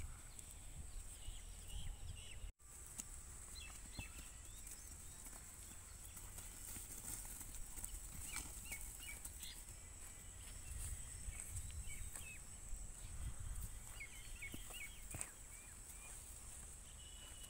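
Faint outdoor background in a livestock pen: a low wind rumble on the microphone, a steady high hiss, and short faint chirps scattered throughout. The sound drops out briefly about two and a half seconds in.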